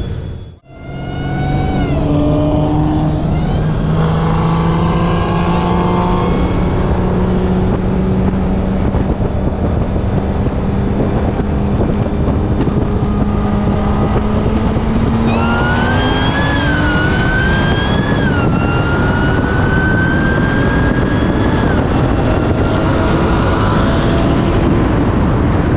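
Performance car engine under hard acceleration in a roll race, loud and continuous after a brief cut-out near the start. Its pitch climbs slowly for many seconds, then rises faster with a high whine over it, dropping back a couple of times later on.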